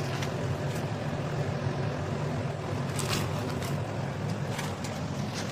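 Steady low rumble of a lit gas burner under a pot of boiling water, with a few brief plastic-bag crinkles as dry noodles are tipped out of the bag into the pan, the clearest about three seconds in.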